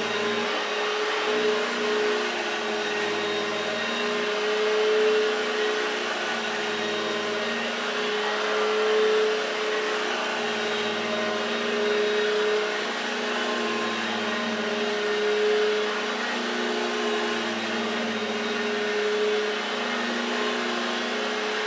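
1969 Hoover Junior 1346 upright vacuum cleaner running with a steady motor hum, its level swelling and easing every three to four seconds.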